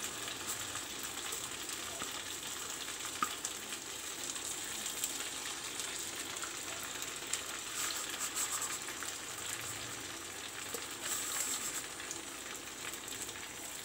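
Hot oil sizzling steadily as sesame-coated flattened-rice and potato fritters deep-fry in a kadai, with small scattered crackles and pops.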